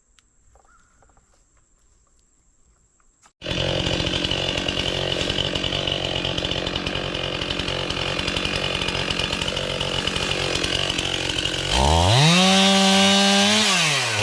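Stihl MS 291 two-stroke chainsaw. It is quiet at first, then starts running abruptly about three and a half seconds in. About twelve seconds in it revs up sharply to a high whine, holds, and drops back near the end.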